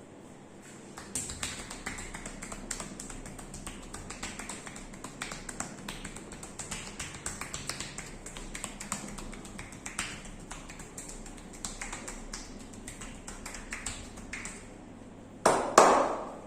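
Quick, irregular percussive tapping of hands on the body during a massage. It ends with two loud smacks about half a second apart.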